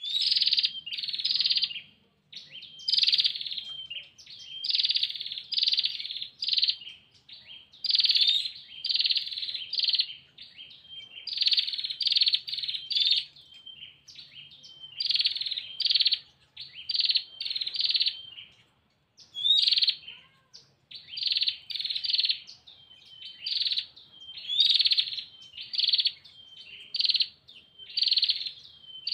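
Female prinia (prenjak) giving its rapid, buzzy rattling calls to attract a male: short bursts about half a second to a second long, repeated in quick runs separated by brief pauses.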